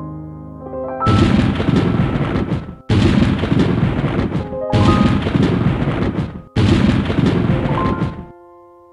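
Background piano music broken by four loud blasts of noise, each about two seconds long and cut off sharply, with piano notes sounding through them; the piano carries on alone near the end.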